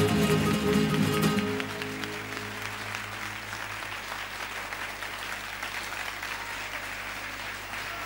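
Acoustic guitars ring out the last chord of the song, and about a second and a half in the music stops, leaving an audience clapping steadily.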